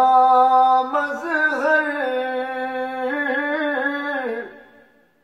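A man's solo voice singing an Urdu devotional kalam (naat) into a handheld karaoke microphone. He draws out the last word of the line in long, ornamented held notes that waver and bend in pitch, then trails off about four and a half seconds in.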